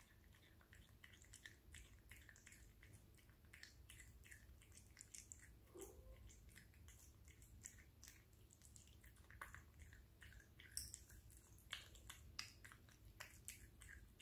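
A tabby cat chewing raw salmon pieces: faint, irregular wet smacks and chewing clicks.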